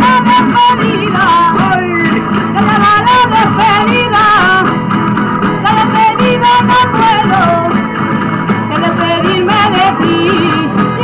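Live Spanish folk dance music from a rondalla: strummed guitars and plucked lutes playing a lively tune, with castanets clicking in rhythm.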